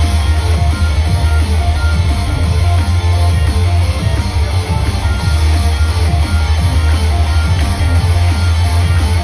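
Loud instrumental rock music with electric guitar and a steady drum-kit beat, played at a live show.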